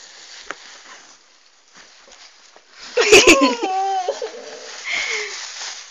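A person's voice making a loud, wavering non-verbal sound, like a giggle or squeal, starting about three seconds in. Two sharp clicks come at its onset, and a short higher sound follows near the end.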